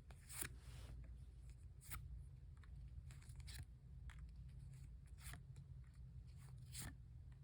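Faint rustles and soft clicks of Pokémon trading cards being handled and laid out one by one, over a steady low hum.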